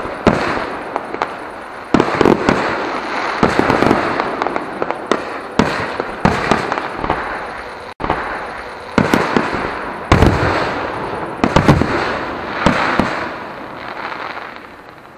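Aerial fireworks shells bursting one after another, with sharp bangs over a continuous crackle. The bangs die away near the end.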